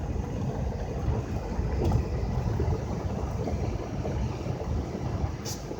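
Steady low rumble of a car moving slowly, heard from inside, with a couple of faint clicks.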